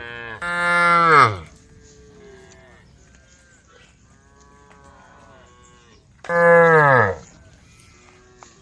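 Cows mooing: two loud, long moos that drop in pitch at the end, about a second in and again near the end. Fainter moos from other cows in the herd come between them.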